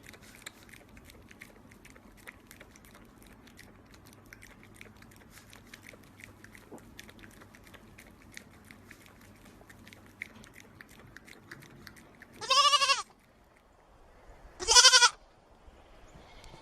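A goat bleating twice near the end, two loud, wavering cries about two seconds apart. Before them there is only faint clicking.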